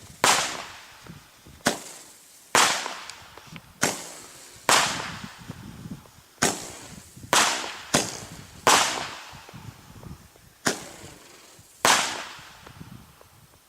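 Explosive Roman candle firing, about eleven sharp bangs roughly a second apart, each trailing off in an echo. The shots stop near the end.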